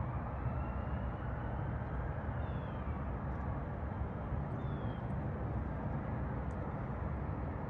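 Outdoor ambience: a steady low rumble, with a few faint, short, falling high chirps.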